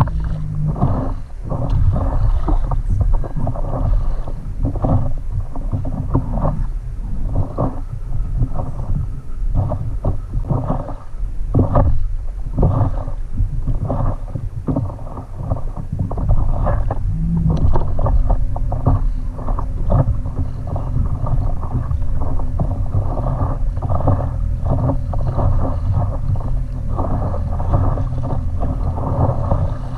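Wind rumbling on the microphone over water lapping and splashing around a stand-up paddleboard as it is paddled on light chop, in irregular uneven surges.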